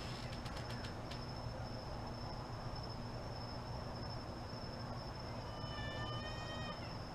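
Steady high-pitched cricket trill over a low hum. There are a few faint clicks near the start and a brief call of several stacked pitches about six seconds in.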